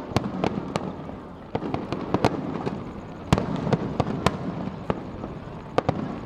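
Aerial fireworks finale: a rapid, irregular barrage of sharp bangs and cracks from bursting shells over a continuous crackle.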